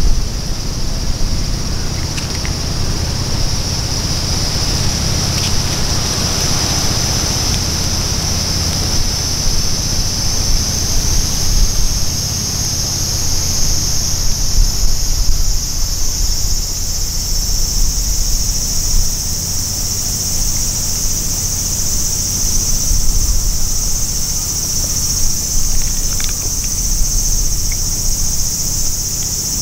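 Insects singing in one continuous high drone, over a low rumbling of wind buffeting the microphone.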